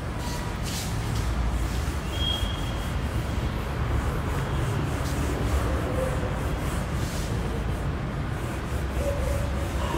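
A whiteboard duster rubbed across the board in repeated wiping strokes, over a steady low rumble.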